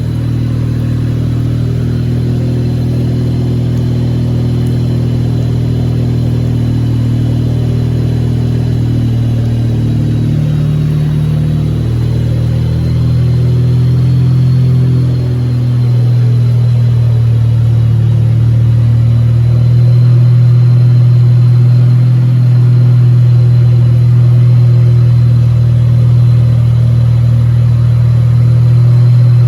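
The Wankelghini's rotary engine running steadily with a low, even hum, dipping briefly about halfway through and running a little louder after.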